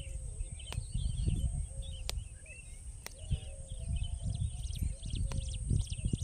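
Small birds chirping and twittering in woodland, many short calls throughout, over uneven low rumble and thumps on the microphone and a few sharp clicks.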